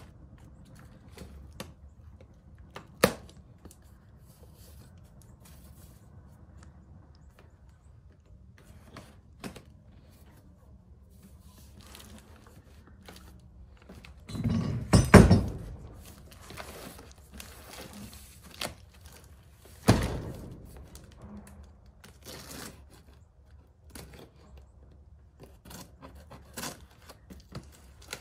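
A cardboard shipping box being cut open with a pocket knife and handled on a wooden plank floor. There are scattered knocks and scrapes, a loud burst of cardboard rustling and thumping about halfway through, and another sharp knock a few seconds later.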